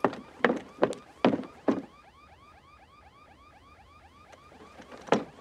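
A metal-framed garden chair knocking and creaking five times in quick succession in the first two seconds as someone climbs onto it, with one more knock near the end. Behind it, a faint car alarm warbles in a steady repeating up-and-down pattern.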